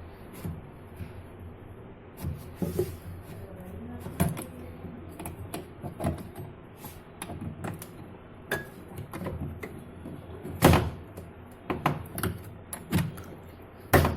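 Irregular clicks and knocks of hard plastic parts being handled as a washing machine's drain assembly is opened by hand to check for a trapped coin. The loudest knocks come about ten and fourteen seconds in.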